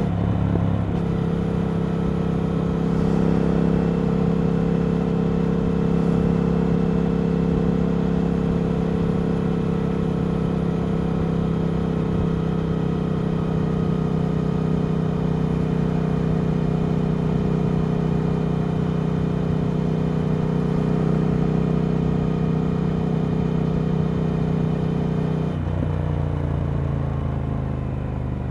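Triumph Speed Twin 1200's parallel-twin engine through a Vance & Hines slip-on exhaust, running steadily at one pitch while under way. Near the end the engine note drops.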